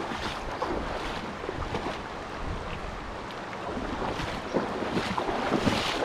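River current rushing over a riffle, with wind buffeting the microphone and a few short crackles near the end.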